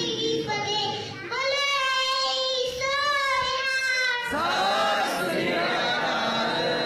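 A young girl chanting a Sikh prayer (paath), singing in long, wavering held notes.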